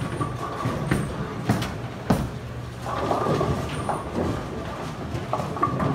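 Bowling alley din: a steady rumble of balls rolling down the lanes and through the ball return, with several sharp clatters of pins and balls knocking.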